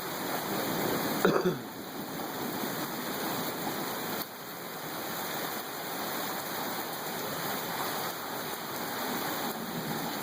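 Heavy storm rain pouring steadily. A brief voice-like sound cuts in about a second in.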